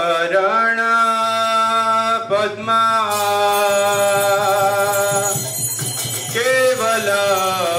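Devotional temple music for a puja: long held notes that slide into pitch at each onset, layered over a steady low drone, with a faint jingling from about three seconds in.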